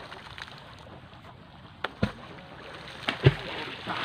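Water splashing alongside a fishing boat's hull over a steady hiss of wind and sea, with a few sharp slaps about two and three seconds in.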